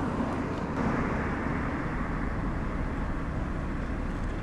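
Steady outdoor rumble of distant airport and road traffic, with no distinct events; it swells slightly about a second in.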